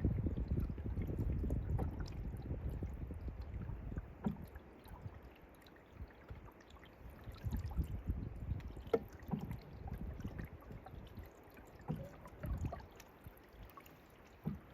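Water gurgling and splashing around a paddled canoe, with a low rumble that is heavier for the first few seconds and a few light knocks scattered through.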